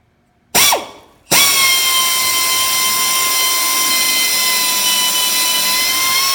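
Air drill giving a quick blip that spins down, then running at steady high speed for about five seconds with a constant whine as the bit drills out a pull rivet, then spinning down. It is really loud.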